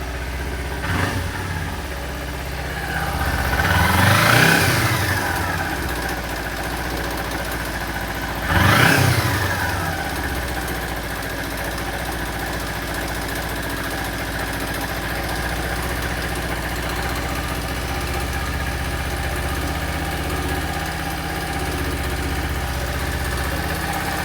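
Kawasaki Ninja 250 parallel-twin motorcycle engine, cold, idling steadily. It takes a quick throttle blip about a second in, a longer rev rising and falling around four seconds in, and a sharp rev near nine seconds, then settles back to idle. The owner reports an abnormal noise after the throttle is opened.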